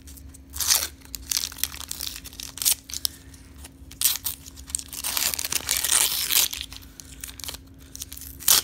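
An old Donruss baseball card wax pack being torn open by hand: the wrapper crinkles and tears in short bursts, with a longer stretch of tearing about five to six and a half seconds in and another sharp rip at the very end.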